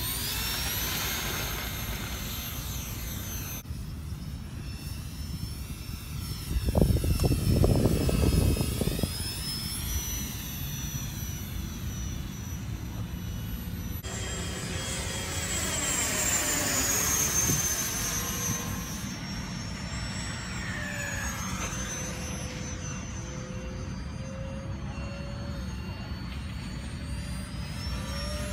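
Ducted fans of a remote-control flying car whining, rising and falling in pitch with the throttle as it flies. A louder low rush comes about seven seconds in.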